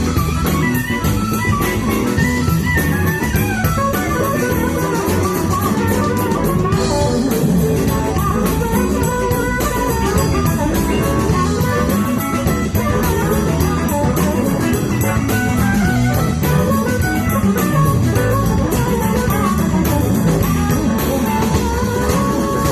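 Blues band playing an instrumental passage with no vocals: a lead melody bending around the middle register over guitars, bass guitar and drum kit at a steady groove.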